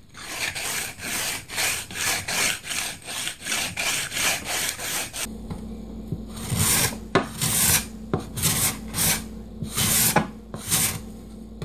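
A steel card scraper made from a taping knife is rubbed back and forth on a wet whetstone in quick rasping strokes, about three a second, honing its edge flat. About five seconds in it changes to the card scraper pushed across a pine board in about ten separate strokes, each a short scrape as it lifts fine shavings, over a low electrical hum.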